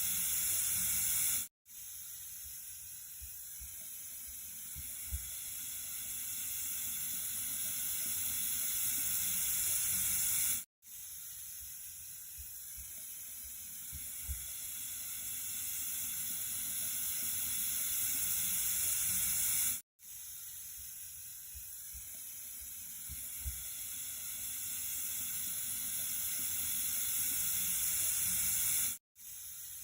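Running water, a steady hiss heavy in the high end, played as a loop: it cuts out for a split second about every nine seconds and starts again, growing slowly louder over each pass.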